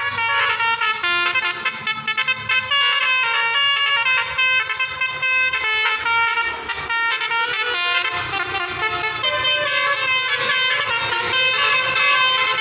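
Bus telolet horn, a Basuri V3 multi-trumpet musical horn, playing a fast tune of bright notes that step quickly from pitch to pitch without a break.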